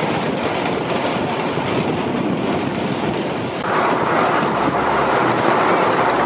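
Hail and rain pelting down in a dense, steady clatter. About three and a half seconds in it turns brighter and a little louder as hail hits a corrugated metal awning.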